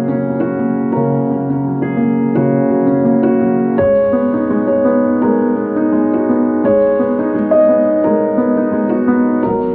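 Slow piano music: held chords with single notes changing every half second or so.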